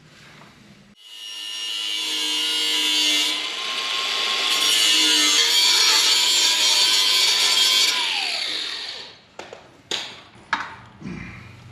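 A grinder starts about a second in and cuts off a corner for about seven seconds with a high steady whine, then its motor winds down. A few sharp knocks follow near the end.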